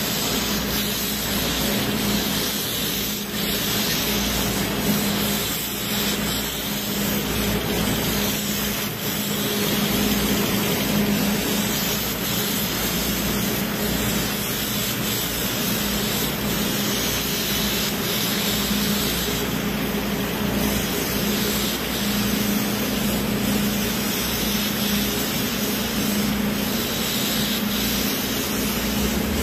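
Compressed-air paint spray gun with a cup hissing steadily as it sprays paint, over a steady low hum.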